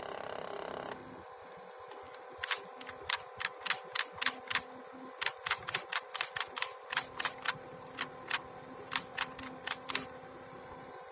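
A steady hum that cuts off about a second in, followed by an irregular string of sharp clicks, roughly three or four a second.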